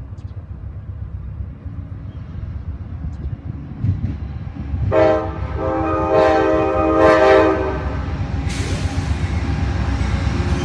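A diesel train horn chord sounds for about three seconds, swelling three times, over the low rumble of idling diesel locomotives. About two seconds later a loud rushing hiss sets in as the Amtrak passenger train passes close by.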